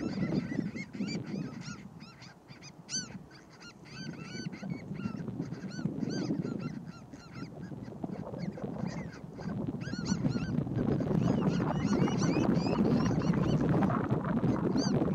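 Birds calling: many short, rapid, overlapping notes that each rise and fall, thickest in the first few seconds and again around the tenth and fourteenth seconds, over a steady low background rumble.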